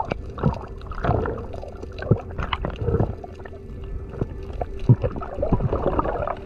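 Underwater audio: muffled gurgling water and irregular knocks and clicks, some sharp, the loudest about five seconds in.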